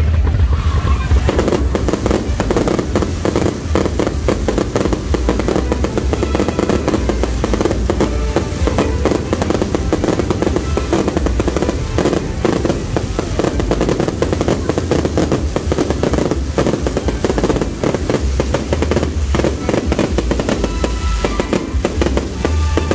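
Ground-launched fireworks barrage firing continuously: a dense, rapid crackle of launches and bursts with heavy low booms, without a break.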